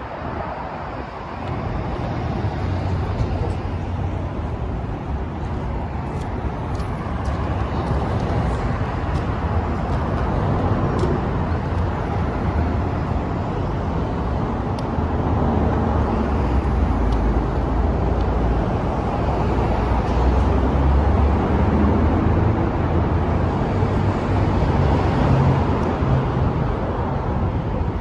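Steady road and freeway traffic noise, a continuous rumble that grows louder through the second half.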